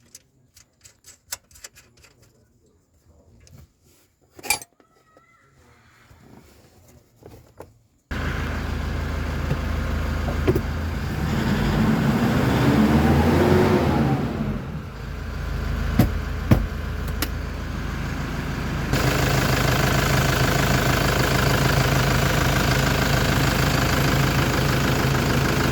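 Faint scattered clicks and taps, then a loud vehicle engine sound that cuts in abruptly. The engine revs up and back down once, then runs on steadily and a little louder toward the end.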